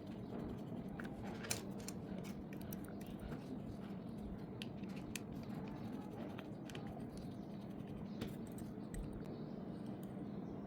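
Scattered sharp clicks and light scraping of small tools handling a G-Shock GDF-100 watch during a battery change, over a steady low hum. The sharpest click comes about a second and a half in.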